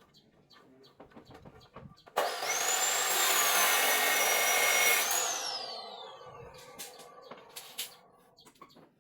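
A handheld electric power tool switched on about two seconds in, running at full speed with a high whine for about three seconds, then released and winding down, its whine falling in pitch until it stops.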